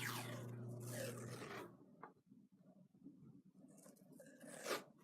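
Tape being pulled off the roll and wound around a hockey stick's knob, two zipping rips: the first at the start lasting more than a second, the second about four seconds in.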